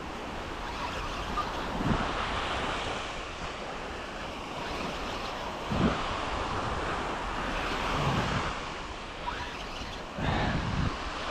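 Small surf washing onto a sandy beach, a steady rushing, with wind buffeting the microphone in gusts about two, six and ten seconds in.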